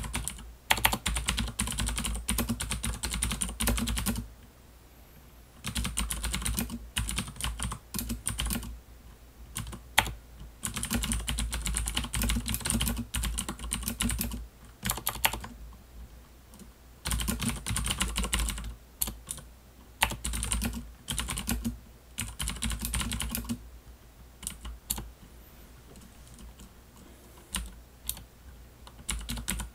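Fast typing on a Das Keyboard mechanical computer keyboard, in runs of rapid keystrokes a few seconds long with short pauses between, thinning to scattered key presses in the last several seconds.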